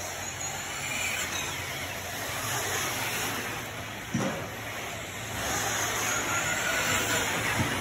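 Electric 1/8-scale RC truggies racing on a dirt track: their motors whine up and down over a steady hall noise and low hum. A brief thud sounds about four seconds in.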